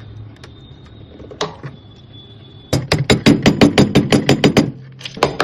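A single sharp click, then a rapid, even run of sharp clicks or taps at about seven a second for roughly two seconds, followed by a few more near the end.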